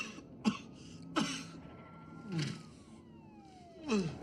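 A wounded man's ragged groans and gasps, each short and falling in pitch, with a police siren wailing faintly in the background.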